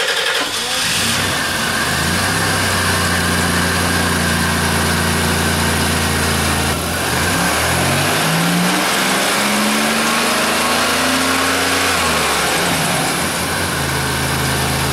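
Engine of a 2000 Voyager minivan catching within the first second and settling to a steady idle, just after its throttle body was cleaned and its air filter replaced to cure a rough idle. About seven seconds in it is revved up and held with speed slowly climbing, then drops back to idle near the end. It runs pretty good.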